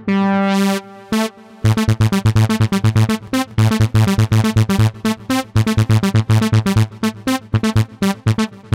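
Yamaha Montage 7 synthesizer playing its "Solo" lead sound: one held note, then from about a second and a half in a fast run of short, clipped notes over a pulsing bass.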